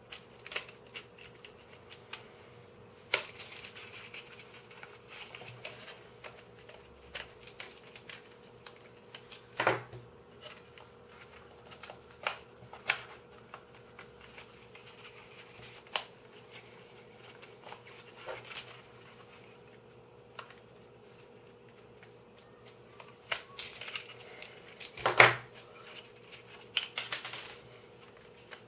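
3D-printed plastic puzzle pieces and a screwdriver clicking and knocking in the hands as the last edge support piece of a Dino cube is pressed and pried into place; scattered irregular clicks, the loudest knock a few seconds before the end.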